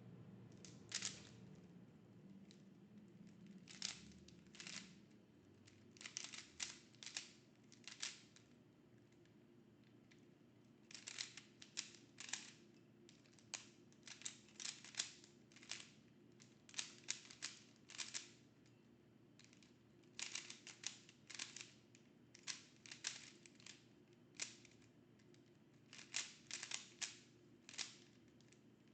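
Rubik's cube being turned fast during a speedsolve: quick runs of sharp plastic clicks as the layers turn, in groups of several turns broken by short pauses.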